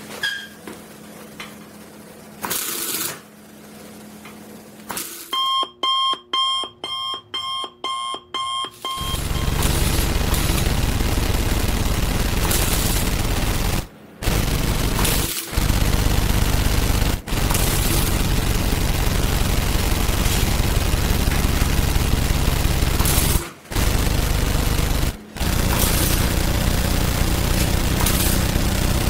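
Stick (electrode) arc welding on a joint of a tubular steel chair frame, building up a bigger weld bead to strengthen the broken joint. The arc gives a steady crackling buzz that stops and restarts several times. Before the welding starts, a run of about eight short two-tone beeps.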